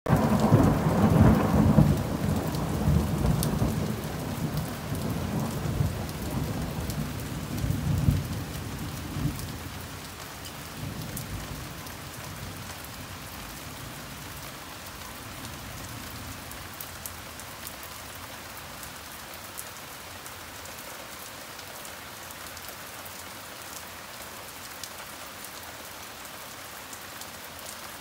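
Heavy rain falling steadily, with thunder rumbling loudly at the start and dying away over about the first ten seconds, leaving only the even hiss of the rain.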